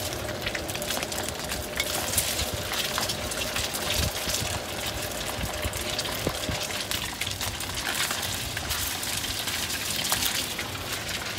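Food sizzling steadily in hot oil in a wok over a gas burner, with a metal spatula scraping and clicking against the wok now and then.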